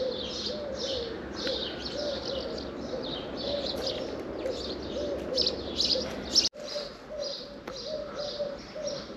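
Birds calling: a low note repeated two or three times a second beneath many quick high chirps. The sound breaks off for an instant about six and a half seconds in, then carries on.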